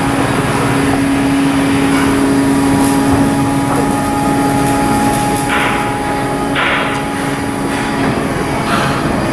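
Shipyard work noise: a steady machine hum that stops about eight seconds in, with short bursts of hissing in the second half.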